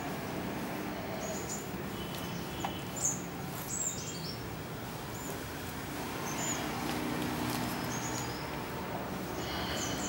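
Small birds chirping: short, high calls scattered through, over a steady low background noise.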